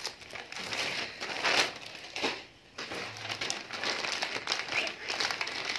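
Plastic courier mailer bag rustling and crinkling as it is picked up and handled, with a brief lull a little before halfway.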